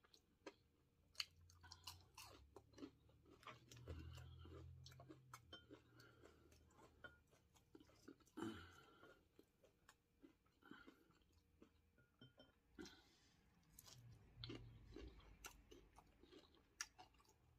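Quiet close-up chewing of breaded fried catfish, a run of small wet mouth clicks and light crunches.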